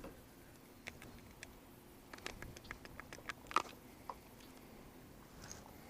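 Faint, scattered small clicks and taps, a few louder ones between about two and four seconds in.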